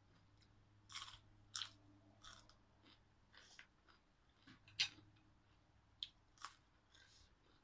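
Mouth-close crunching and chewing of a raw green vegetable stick: a series of short crisp crunches, the loudest about five seconds in.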